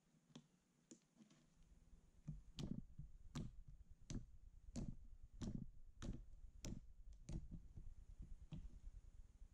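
Thick clear slime mixed with eyeshadow being poked with fingertips, each poke giving a sharp click-like pop, about one every 0.7 seconds for several seconds, with a few more near the end. A faint low rumble sits underneath.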